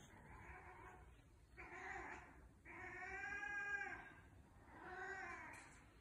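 Tonkinese cat meowing at a kookaburra outside: four drawn-out calls in a row, the third the longest and loudest.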